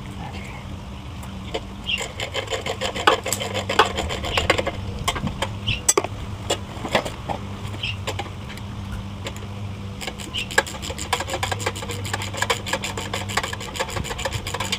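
Hand tools working on a small single-cylinder engine being taken apart: irregular metallic clicks, clinks and scraping, then a long run of rapid, evenly spaced clicks from about ten seconds in, over a steady low hum.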